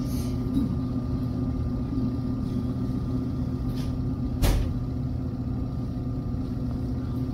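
Electric potter's wheel running with a steady low hum while clay is thrown on it. One sharp knock about four and a half seconds in.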